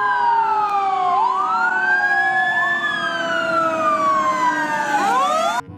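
Fire department ladder truck's siren wailing, with several overlapping tones: some slowly fall in pitch while others sweep up over them. It cuts off suddenly near the end.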